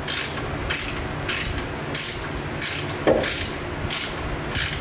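Socket ratchet being worked back and forth on a bolt, the pawl clicking in a short burst on each swing, a little under two swings a second. Under it runs the steady hum of a garage fan, with one duller knock about three seconds in.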